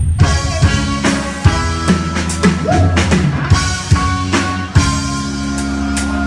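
Live dance band playing an instrumental intro: a drum kit keeping a steady beat over bass and sustained keyboard or guitar chords.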